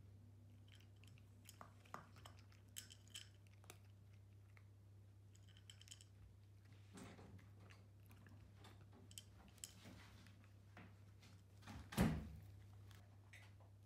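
A cat eating from its food bowl: faint crunching and clicking of chewing and licking, with one louder knock against the bowl near the end.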